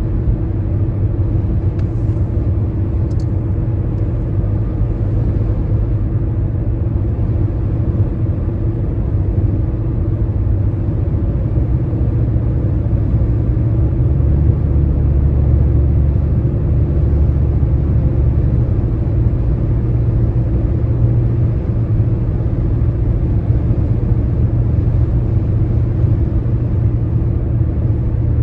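Steady low road rumble of a car driving at highway speed, its tyres and engine droning evenly and swelling slightly about halfway through.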